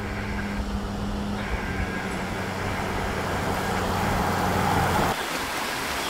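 Toyota LandCruiser 4WD driving along a sealed road: steady engine hum under tyre noise that grows louder as it approaches. About five seconds in it cuts off abruptly, leaving a rushing sound of flowing creek water.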